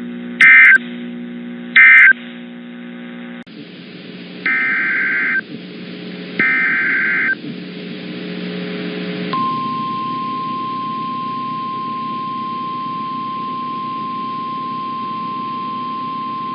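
Emergency Alert System data tones. Two short buzzy data bursts near the start close one alert. Over a hiss, two longer bursts open the next alert's header, and about nine seconds in a steady single-pitch tone of about 1050 Hz starts and holds: the NOAA Weather Radio attention signal.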